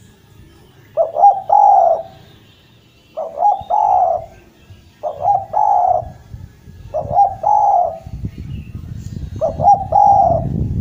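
Spotted dove (derkuku) cooing: five calls about two seconds apart, each two or three quick short notes running into a longer coo. A low rumble builds underneath near the end.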